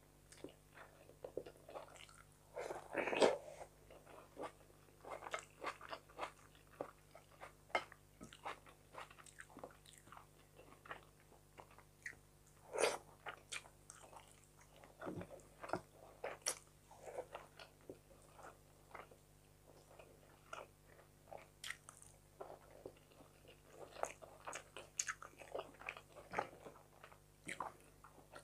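Close-up chewing and biting of fried fish and rice, with many small irregular crunches and mouth clicks and a few louder crunches, the loudest about three seconds in.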